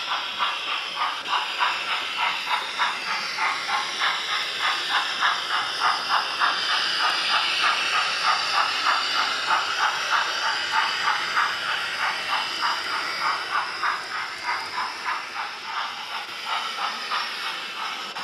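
Sound decoder in an OO gauge model of an SECR Wainwright D class 4-4-0, playing steam chuffs through the model's small speaker. The chuffs come steadily at about three a second over a hiss and fade slightly near the end.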